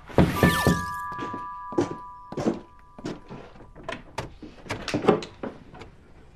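A doorbell rings, its chime tones hanging for a couple of seconds. After it comes a run of irregular thunks and clicks as the door is unlatched and opened.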